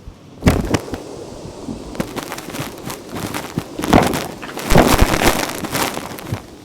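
Vacuum cleaner sucking up gritty dirt, with irregular crackling crunches as debris rattles up the tool. The crunches come in bursts, loudest about half a second in and again around four to five seconds.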